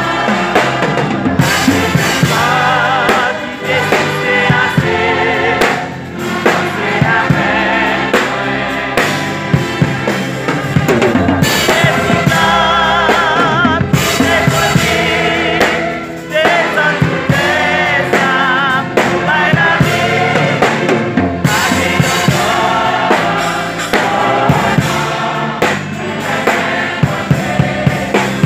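Gospel worship song: a choir singing with vibrato over a drum kit and bass, with a steady beat.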